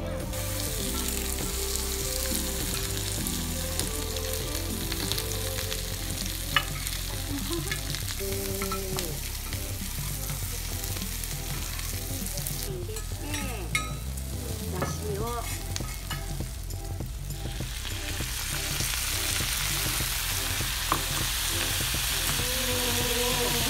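Cabbage, pork and yakisoba noodles sizzling on a hot teppan griddle while two metal spatulas scrape and toss them, with a few sharp clinks of the spatulas on the steel. The sizzle grows louder in the last few seconds.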